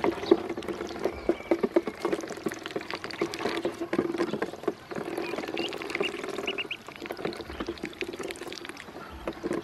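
Ducklings dabbling and pecking at a small dish of water and feed: a steady run of quick wet clicks and taps. A few short high peeps come through, several in a quick run past the middle.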